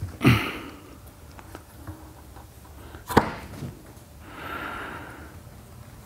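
Dayton Audio Ultimax 18-inch subwoofer driver being lowered by hand into its cabinet cutout onto the weather stripping, with a brief rustle at the start and a single sharp knock about three seconds in as the driver's frame meets the cabinet.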